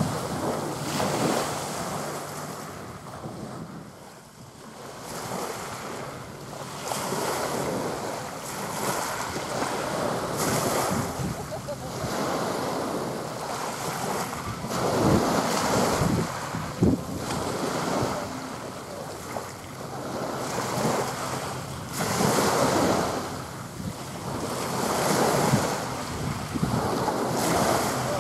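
Wind buffeting the microphone over waves washing onto the shore, the noise swelling and fading every few seconds.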